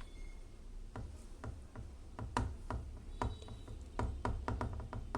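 Irregular light clicks and taps of detergent being added to a front-loading washing machine's detergent drawer. A few scattered taps come first, then quicker, denser clicking from about two seconds in, over a low steady hum.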